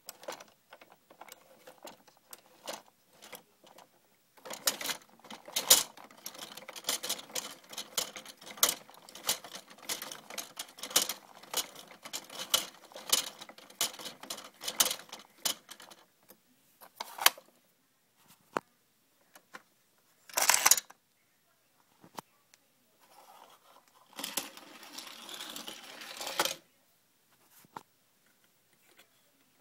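Hot Wheels Car Wash playset's plastic wash drum turning around a toy car, making a rapid, even run of plastic clicks and rattles for about ten seconds. Then come scattered single clicks, a short burst, and a longer rattle near the end as the toy's plastic parts are handled.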